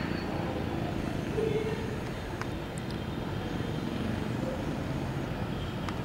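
Steady low background rumble with a few faint, brief high notes and a couple of soft clicks.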